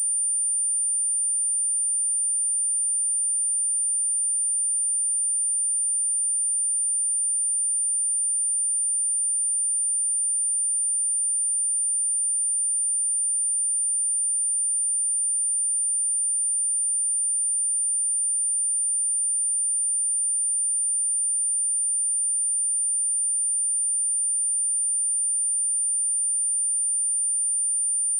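A steady, continuous pure sine-wave test tone at 9183 Hz, high-pitched and unchanging in pitch and loudness.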